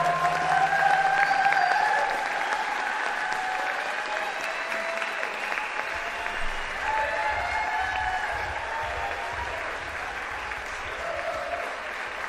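Theatre audience applauding, with whoops and shouted cheers over the clapping. The cheering is thickest in the first couple of seconds.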